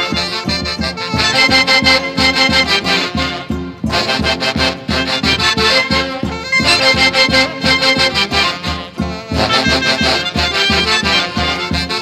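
Andean orquesta típica music in the Santiago style: a section of saxophones playing the melody in unison over a steady, even drumbeat, with short breaks between phrases.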